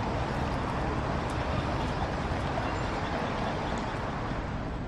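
Steady city street traffic noise, a constant wash of vehicles with no single one standing out.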